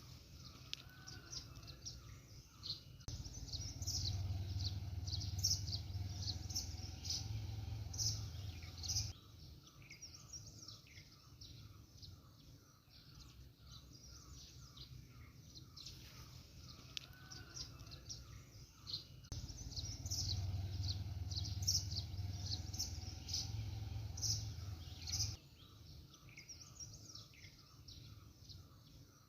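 Many small birds chirping and twittering, with a soft steady ticking call underneath; the same stretch of chirping repeats about every 16 seconds, as in a looped birdsong track. A low rumble rises under the birds twice, for about six seconds each time.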